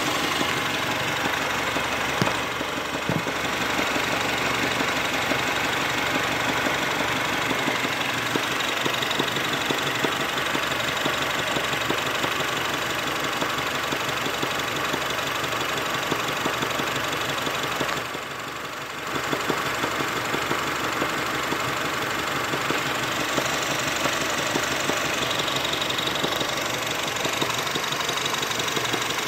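Honda Civic engine idling steadily, recorded close to the engine, with a slight knocking sound in the engine. The sound drops briefly about eighteen seconds in.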